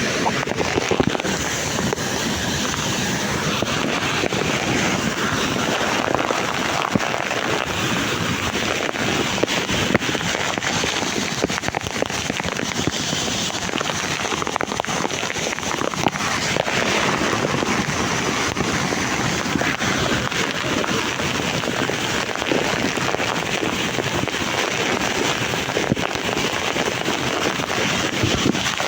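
Waterfall: falling water rushing and splashing in a steady, loud roar.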